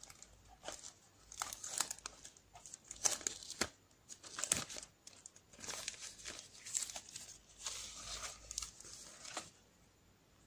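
Packaging around a clear protective phone case crinkling and rustling as it is handled and opened, in irregular crackles that stop shortly before the end.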